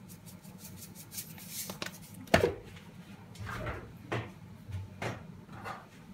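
Knocks and clatters of kitchen items being handled: one sharp knock about two seconds in, then several softer knocks.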